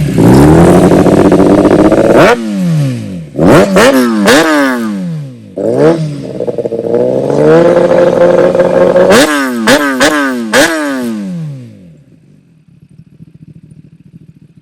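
2019 Kawasaki Ninja ZX-10R inline-four revved through an M4 Tech1 titanium cat-eliminator slip-on with carbon canister: two long held revs, each followed by a quick run of sharp throttle blips with the pitch dropping back after each. The sound then dies down to a faint level near the end.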